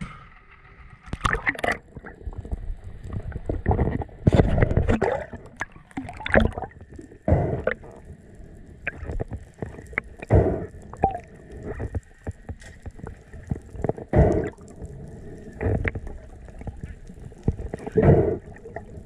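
Water gurgling and sloshing around a camera at the surface and underwater during a freedive, in uneven surges every second or so.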